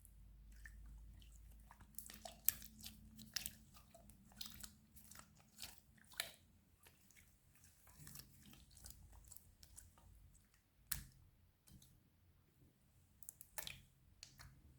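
Slime being pressed and stretched by hand: soft, irregular sticky pops and crackles, with a couple of sharper clicks.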